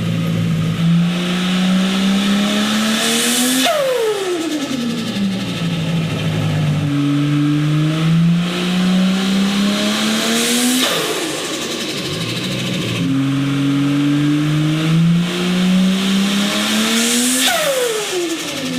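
Turbocharged car engine revving up under load, its pitch climbing, then lifting off three times, about every seven seconds, each time with a burst of hiss and a falling whine as the turbo spools down and vents.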